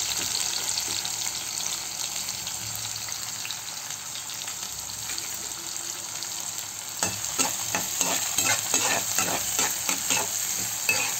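Chopped onions sizzling in hot oil with tempering seeds in a nonstick kadai. From about seven seconds in, a spatula stirs and scrapes them in quick, repeated strokes.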